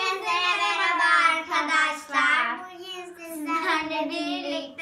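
A child singing in long, held, high notes.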